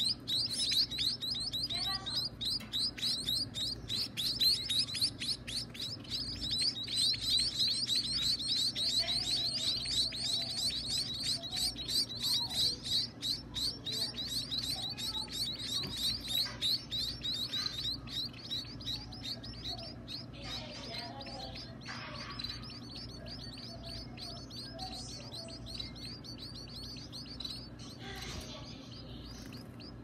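Nestling birds begging to be fed: a rapid, high-pitched chittering of short calls, loudest for the first half and dying down after about eighteen seconds. A steady low hum runs underneath.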